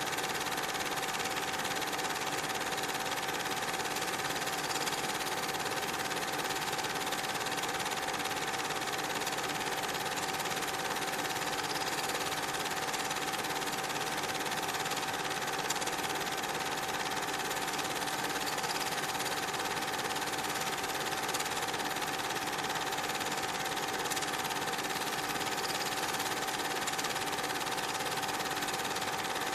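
Steady whirr and clatter of a cine film projector running, with a constant hum, unchanged through the changes of picture.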